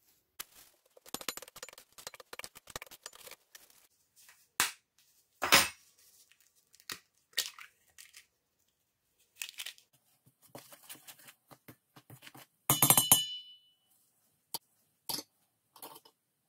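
Kitchen prep sounds at a stainless steel mixing bowl: scattered clinks and taps of a spoon on the bowl, and an eggshell being cracked and pulled apart. The loudest is a brief ringing metallic clatter a little past the middle.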